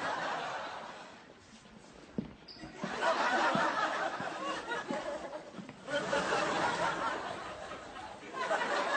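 Studio audience laughing in waves: the laughter fades about two seconds in, then breaks out again about three seconds in and keeps swelling and easing.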